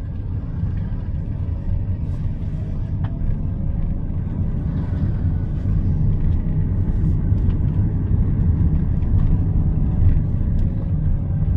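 Low rumble of a Daihatsu Rocky 1.2's three-cylinder engine and its tyres, heard from inside the cabin while driving slowly. It gets a little louder about halfway through as the car picks up speed.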